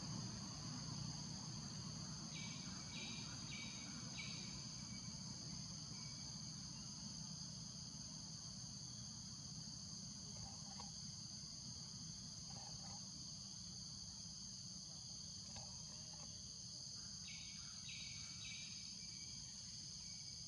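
Forest insects droning in a steady, even high-pitched hum over a low rumble. A run of four short chirps comes a couple of seconds in, and three more near the end.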